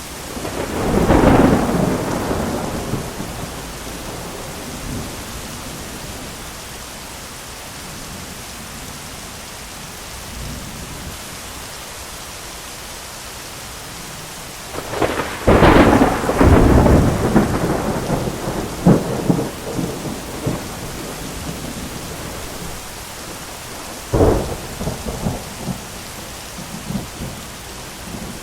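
Thunderstorm: steady heavy rain with rolls of thunder. One rumble comes about a second in, a loud crack and long rolling rumble about halfway through, and another sharp clap near the end.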